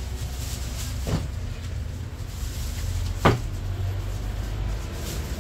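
Two sharp knocks over a steady low hum, the second knock, a little past three seconds in, the louder.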